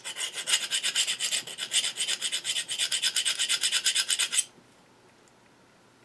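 Flat steel file rasping back and forth in quick, short strokes across the back of a pen-turning barrel trimmer's cutter teeth, sharpening the dull edges. The filing stops about four and a half seconds in.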